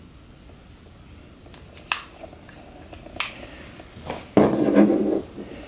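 Small cosmetic tubes and packaging being handled: two sharp plastic clicks, like applicator caps being closed, then a louder knocking clatter of about a second near the end as the products are set down.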